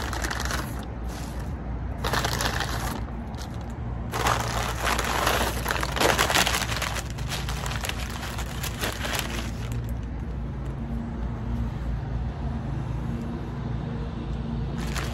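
Paper takeout bag and paper food wrappers crinkling and rustling as they are opened by hand, in several bursts, loudest about halfway in. A steady low hum runs underneath.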